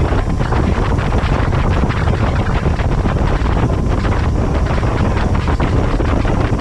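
Wind buffeting the microphone on a fast-moving motorboat, mixed with the steady rush of its churning wake and engine.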